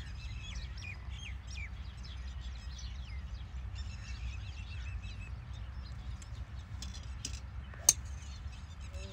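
Small birds chirping over a low steady rumble. Near the end comes a single sharp crack: a driver striking a golf ball off the tee.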